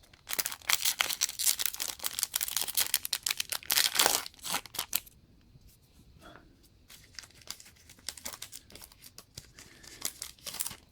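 Foil wrapper of a Pokémon TCG Fates Collide booster pack being torn open and crinkled, a dense crackling for about five seconds, then dropping to faint scattered clicks and rustles of the pack and cards being handled.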